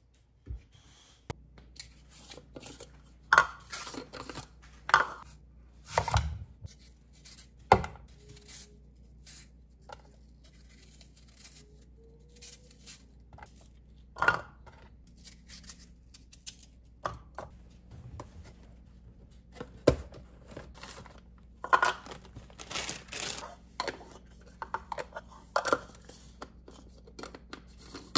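Irregular handling noises on a kitchen counter: packaging being torn and crinkled, mixed with sharp knocks of items set down on a wooden cutting board.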